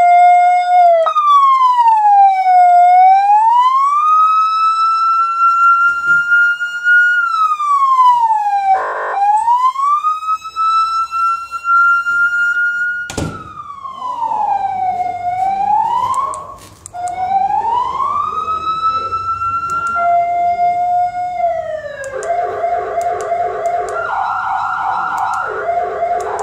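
A 200 W electronic siren sounding through its horn speaker in a slow wail, its pitch rising and falling every few seconds. There is a sharp click about halfway through. Near the end it switches to fast pulsing tones that alternate between two pitches.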